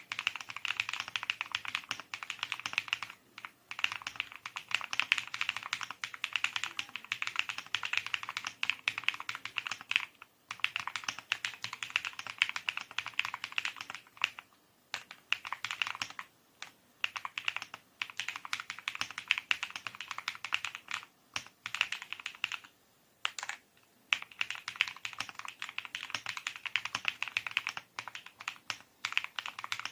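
Fast, continuous typing on a custom mechanical keyboard with NightSakura switches: a dense run of key clicks, broken by short pauses every few seconds.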